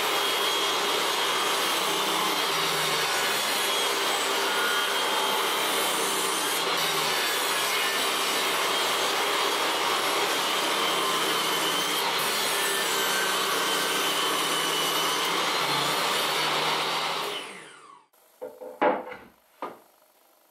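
Table saw running as a chestnut board is pushed through the blade on a crosscut sled: a steady sawing noise with a faint wavering whine over a low motor hum. It fades out near the end, and then come two short wooden knocks of boards being set down on a bench.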